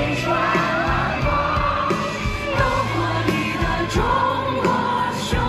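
Live pop concert audio: a large audience singing the lyrics along in unison over the band's backing music.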